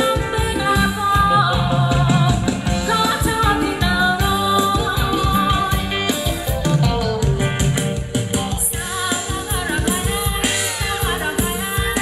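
Thai dance-band music played live by a band, with a steady beat and sustained melody lines.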